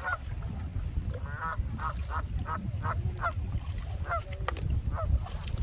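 Canada geese honking: a quick run of honks from about a second in, then a few more spaced out, over a low rumble of wind on the microphone.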